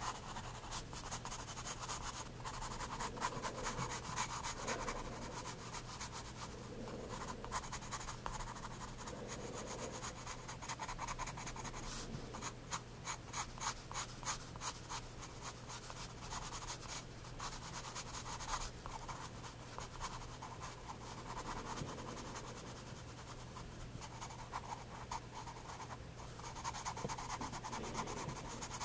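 Soft 9B graphite pencil scratching on sketchbook paper in many short, quick strokes as it shades a small area, with a denser run of rapid strokes about halfway through. A faint steady low hum lies underneath.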